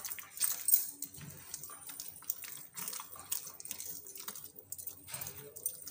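Hand squishing and kneading a thick, wet batter of ground rice and gram flour in a glass bowl: irregular soft squelches and little wet clicks.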